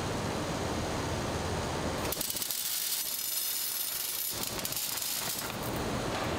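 Screw-factory conveyor machinery running with a steady, broad mechanical noise and low rumble. About two seconds in the rumble drops out and a high hiss takes over for about two seconds, then the machine noise comes back.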